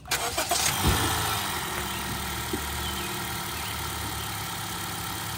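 Car engine starting and settling into a steady idle.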